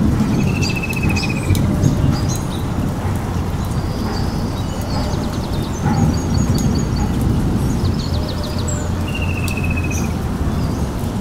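Birds chirping, with a short buzzy trill heard twice, about half a second in and near the end, over a steady low rushing noise.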